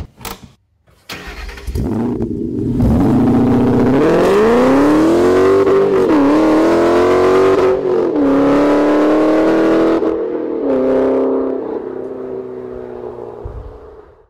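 Ford 5.0 L Coyote V8 of a 2013 Mustang GT fitted with a Boss 302R intake manifold starting up: a click, a short crank, and it catches about two seconds in. The revs climb, dip and climb again, then settle into a steady idle that fades out near the end.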